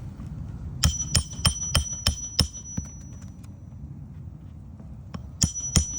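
Hammer striking a steel flat bar on a shingle roof: six quick metal strikes about three a second, then two more near the end, each leaving a high ringing tone.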